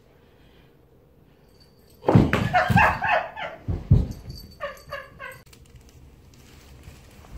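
A cat leaping after a thrown toy and landing, with heavy thumps on the wooden floor, mixed with squeaky animal-like cries. Near the end comes a quick run of about five short high calls.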